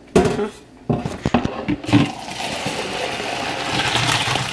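Boiling pasta water poured from a steel pot into a colander in a stainless steel sink. A few knocks and clatters of the pot come first, then a steady rush of pouring, splashing water for the last couple of seconds.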